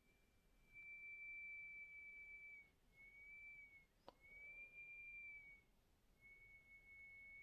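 High-pitched single-tone whine from a Pamu earbuds charging case, starting and stopping in stretches of one to two seconds, with one sharp click about four seconds in: the fault noise coming from the case.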